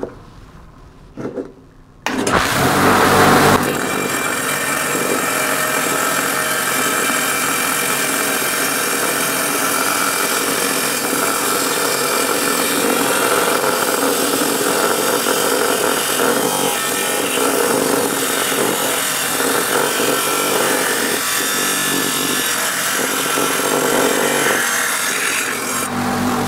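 Small lapidary saw starting up about two seconds in, then its blade grinding steadily through a rough agate-and-quartz stone that is fed into it by hand.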